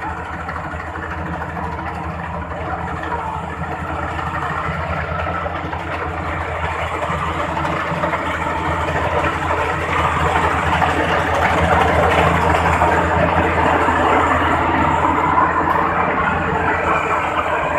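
Rice combine harvester running steadily, its engine hum under a dense mechanical clatter, growing louder over the first dozen seconds and then holding.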